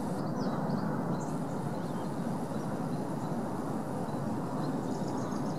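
A steady low rumble of distant traffic, with a few faint high chirps over it.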